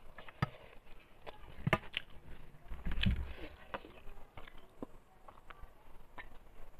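Close-up eating sounds: chewing clicks and lip smacks, with fingers gathering rice on a steel plate, coming as irregular short clicks. A dull low thump about three seconds in.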